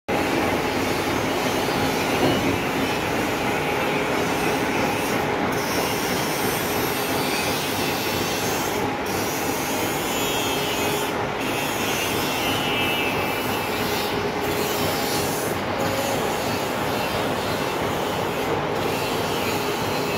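Hydraulic rubber molding press's power unit running: an electric motor and hydraulic pump giving a steady, noisy drone with a faint whine through it.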